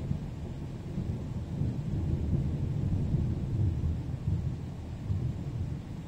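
Thunder rolling: a long, low rumble that swells and falls in waves for several seconds, easing off near the end.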